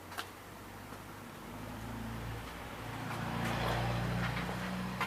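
A motor running steadily with a low hum, growing louder about a second and a half in and loudest near the end, with a sharp click near the start and another near the end.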